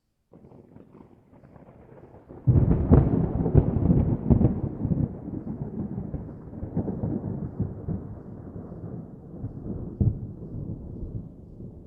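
Distant thunder: a faint rumble that breaks into a loud crackling roll about two and a half seconds in, then slowly rolls away, with a smaller surge near the end.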